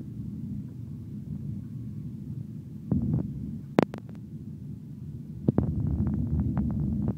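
Jet airliner rolling along the runway, heard inside the cabin as a steady low rumble. A sharp click comes just before four seconds in. About five and a half seconds in the rumble grows louder, with a quick run of rattles and knocks.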